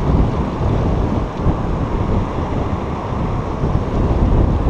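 Wind buffeting an action camera's microphone in a steady rumble, over the rush of a fast-flowing river.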